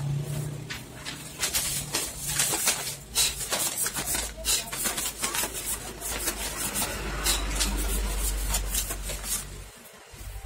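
Photocopier running with its fuser section open: a low motor hum under repeated clicks and rattles of the mechanism, the hum cutting off near the end.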